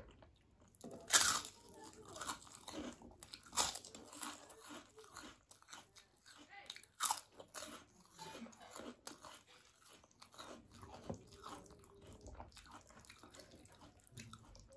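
Crisp fried papad being bitten and chewed close to the microphone: loud crunches about a second in, again near three and a half seconds and around seven seconds, with smaller crackles of chewing between and after them.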